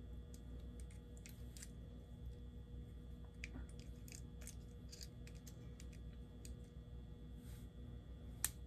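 Faint small clicks and scratches of fingers working a wheel off a model diesel locomotive's truck, with one sharper click near the end.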